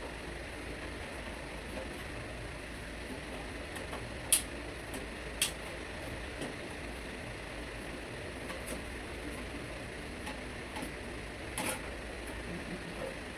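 Sharp clicks and knocks of tools and metal parts during reassembly of an air conditioner's outdoor unit: two clicks about a second apart, then a short cluster of knocks near the end, over a steady background hiss.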